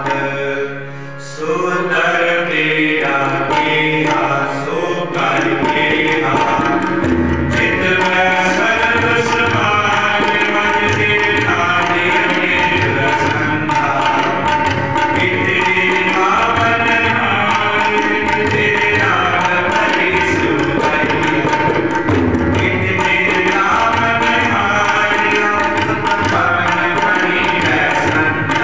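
Sikh kirtan: a harmonium and a pair of tabla accompanying singing. The tabla comes in a few seconds in and settles into a steady beat under the harmonium and voice.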